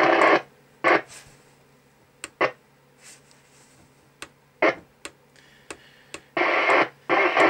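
Domico Convoy 1 27/81 FM CB radio being stepped through its channels: bursts of static hiss from its speaker, some brief and some lasting about half a second, cutting in and out between sharp clicks of the rotary channel switch.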